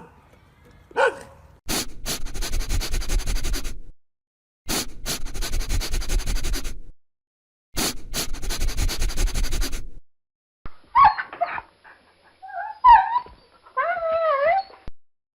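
Dog sounds: a single bark about a second in, then three rough, noisy stretches of about two seconds each, then a run of high, sliding whimpers and whines near the end.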